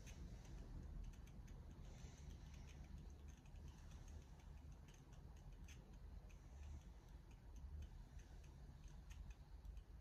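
Near silence: room tone with a faint low hum and faint, irregular small clicks.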